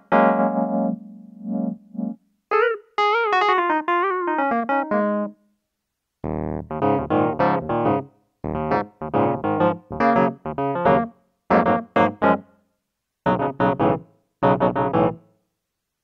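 Korg M50 synthesizer playing its 'Pure Wurly E.Piano' patch, a Wurlitzer-style electric piano sound. A flowing melodic phrase comes first, then a string of short chords with brief gaps between them.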